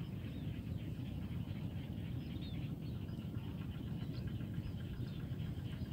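Swamp and rice-field ambience: a steady low rumble under many faint, rapid high chirps from small creatures.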